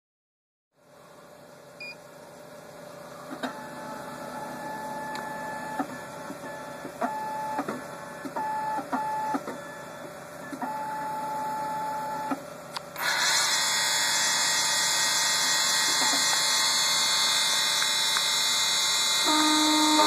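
Keyline Laser 994 key-cutting machine: its control panel beeps about a dozen times, some short and some held, then about 13 seconds in its cutter spindle starts with a loud steady high whir. Near the end a lower humming tone joins the whir as it works on a Honda high-security key blank.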